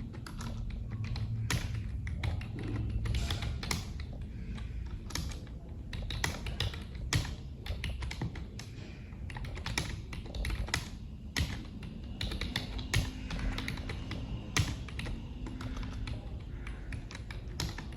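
Computer keyboard being typed on continuously in a timed typing test: a steady, irregular run of key clicks at a pace of about 30 words per minute.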